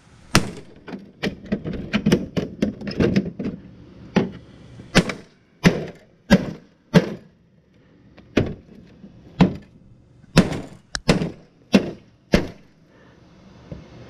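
Hatchet chopping into the plastic back cover of a flat-screen TV: a run of sharp chops, quick and crowded together for the first few seconds, then single blows about once a second, stopping a little before the end.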